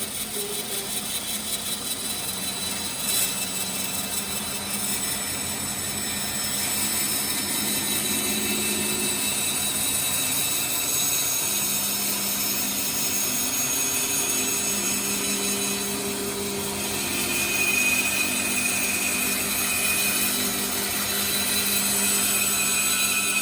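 Band saw running and cutting along a curved line through a piece of wood: a steady sawing sound with a high whine.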